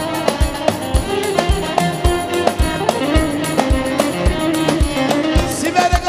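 Instrumental Turkish halay dance music: a davul bass drum beats a steady rhythm of about two strokes a second under a held, bending melody line.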